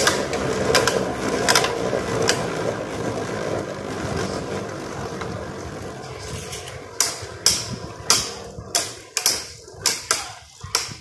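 Two Beyblade Burst spinning tops, Valkyrie Wing Accel and Nova Neptune, whirring and grinding on a plastic stadium floor, the whir fading over the first half. From about seven seconds in the tops knock against each other in a run of sharp clacks, two or three a second.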